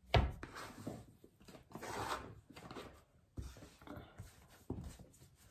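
Plastic dough scraper and hands working a log of dough on a floured wooden board: a sharp knock at the start, then soft scraping and rubbing with a couple of lighter taps.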